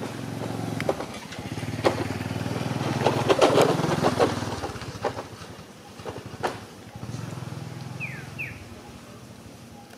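A small motorbike engine passing by, growing louder to a peak a few seconds in and then fading, with scattered sharp clicks. Two short falling chirps come near the end.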